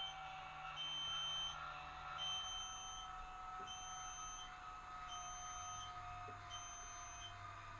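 An electronic beep repeating about every second and a half, each beep lasting under a second, over a faint steady whine.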